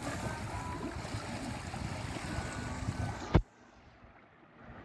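Choppy seawater splashing and sloshing against the side of a fishing boat, with a single sharp knock about three and a half seconds in, after which it drops much quieter.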